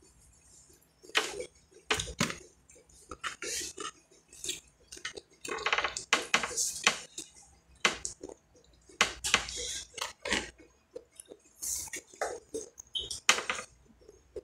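Close-up eating sounds: crunching bites and chewing of fried chicken, with clicks and clatter of utensils on a plate, in short irregular bursts.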